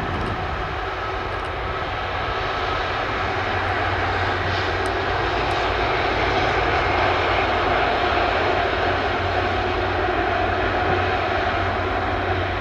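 Airbus Beluga XL's two Rolls-Royce Trent 700 turbofan engines running at taxi power: a steady whine over a low hum, growing a little louder a few seconds in.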